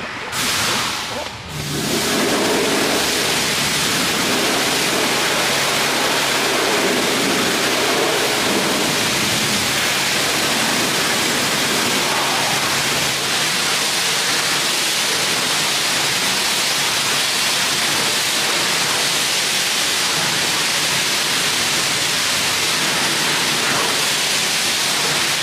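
High-pressure washer spraying water in a steady, even hiss with a low hum underneath. It starts about two seconds in and stops abruptly at the very end.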